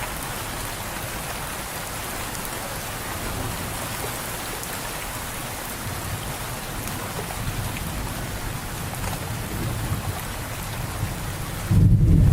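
Steady rain falling on a surface, with a low rumble of thunder slowly building. Near the end a loud, deep thunder rumble comes in suddenly.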